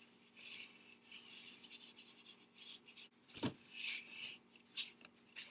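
Felt-tip highlighter rubbing across construction paper in a series of short, quiet drawing strokes.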